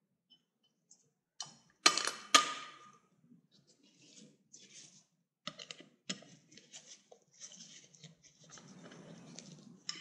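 Small hardware being handled and fastened on a motorcycle air-cleaner backing plate. There are two sharp metallic clinks about two seconds in, then light ticks and rubbing as a screwdriver drives the screws that fix the oil reservoir to the plate.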